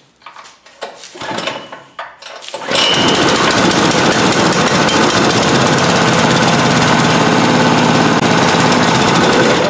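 Small single-cylinder horizontal-shaft engine starting, catching about two and a half seconds in and running steadily at speed, then dying away right at the end. It is being run to check that a crankshaft extension, tack-welded in three spots, spins without a wobble.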